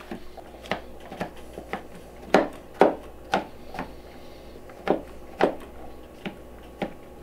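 Kitchen knife chopping mushrooms into small pieces on a cutting board: irregular knocks of the blade on the board, about two a second and uneven in strength.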